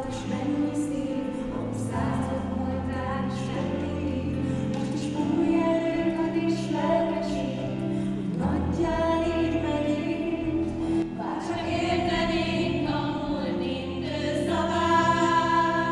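Teenage girls' choir singing a Hungarian song together, over sustained accompaniment chords.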